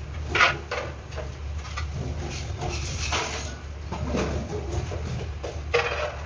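Steel notched trowel, cut from a circular saw blade, scraping tile adhesive and knocking against a plastic mortar bucket: a few short scrapes and knocks, the loudest about half a second in, over a steady low hum.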